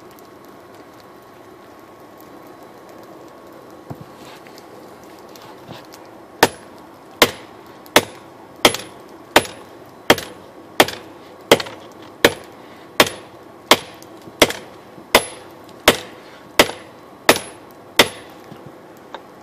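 Hand hammer striking red-hot steel on a steel-block anvil: about seventeen evenly spaced blows, one every 0.7 seconds or so, starting about six seconds in, each with a short metallic ring. A steady hiss from the gas forge's burner runs underneath.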